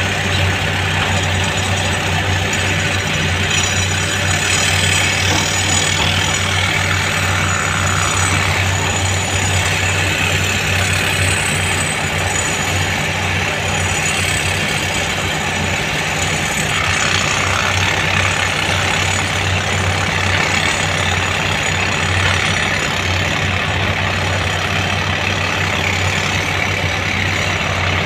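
Heavy diesel engine idling steadily, an even low hum that barely changes.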